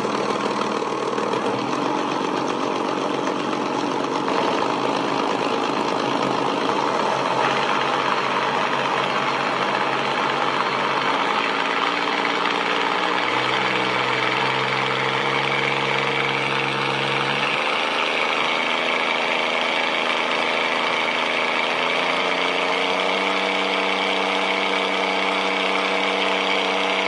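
Light aircraft engine running steadily, its note shifting in pitch a few times: dropping a little about halfway through and rising again near the end.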